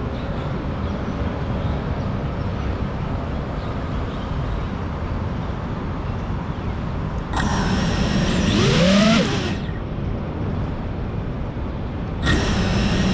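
Steady low rumble of outdoor city traffic. About halfway through, a louder sound with pitches gliding up and down breaks in for a couple of seconds, and a similar one starts again near the end.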